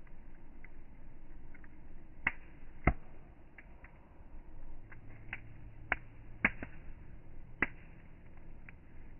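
Campfire crackling, with irregular sharp pops, the loudest ones a little after two seconds in and again around six to seven and a half seconds in, over a low steady hum of the flames.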